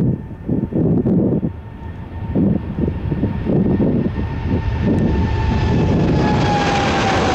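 Boeing 777-300's twin jet engines at takeoff thrust as the airliner rolls and lifts off, a loud rumble that grows fuller and hissier about two-thirds of the way through. A high whine slowly drops in pitch as the jet passes. Wind gusts buffet the microphone in the first half.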